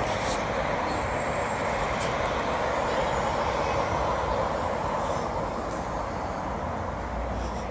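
Steady hiss of road traffic, cars passing by on the street.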